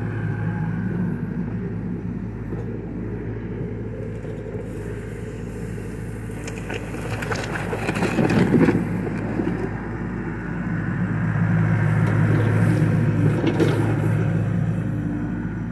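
John Deere 60G compact excavator's diesel engine running steadily under hydraulic load as it digs a trench. About eight seconds in, the steel bucket scrapes and knocks along the trench floor, the loudest moment. From about eleven to fourteen seconds the engine gets louder again as the arm swings back.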